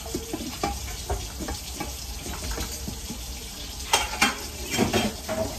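Pot of rice boiling on the stove with a steady bubbling hiss, and a glass pot lid clinking as it is set on the pot; sharper clinks come about four and five seconds in.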